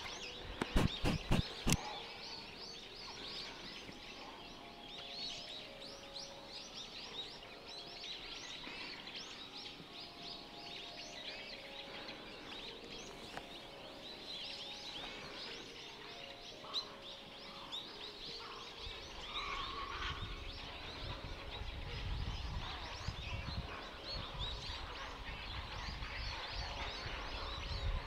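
A grey heron breeding colony: a dense, continuous chorus of many birds calling at once. A few sharp knocks come about a second in, and a low rumble joins about two-thirds of the way through.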